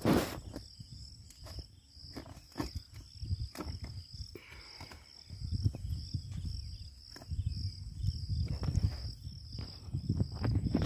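Insect chirring in a steady high pulse about twice a second, over a low rumble, with scattered sharp clicks and knocks, the loudest right at the start.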